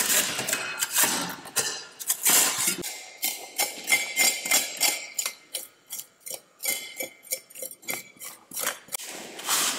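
Small metal archaeological trowel scraping and clinking against packed soil and stones in a rapid run of short, irregular strokes, with a longer scrape near the end.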